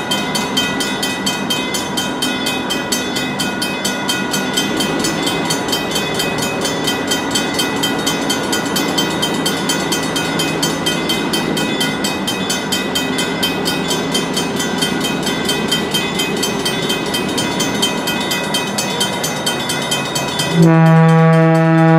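Railroad crossing bells ring steadily with an even, rapid repeat as a passenger train approaches. About 21 seconds in, the locomotive's horn sounds loudly, a sustained chord.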